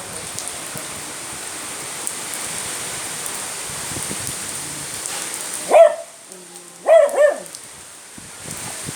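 Steady rain hiss, then a beagle barks once and, about a second later, twice more in quick succession.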